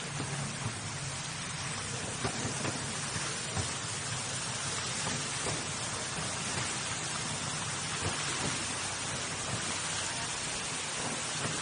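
Fountain jets splashing into a pool, a steady rain-like hiss, heard from an open miniature train running alongside. Occasional light clicks from the train's wheels on the track and a steady low hum run underneath.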